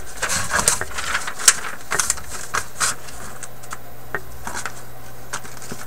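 Sheets of paper rustling and being handled, with scattered light clicks and taps at irregular moments, over a faint steady hum.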